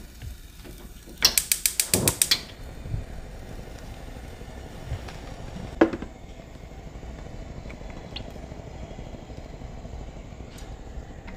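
A quick ratcheting run of about a dozen sharp mechanical clicks lasting about a second, then a single knock a few seconds later, over a low steady background.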